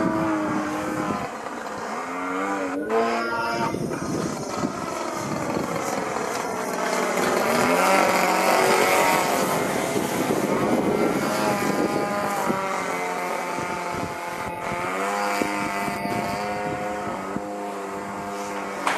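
A 26cc two-stroke gas engine on an RC aerobatic plane running in flight, its pitch rising and falling again and again as the plane manoeuvres.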